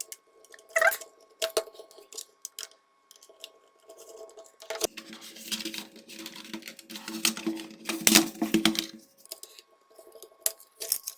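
Scattered clicks, taps and knocks of a plastic router casing being handled and opened with tools, with a longer stretch of scraping in the middle.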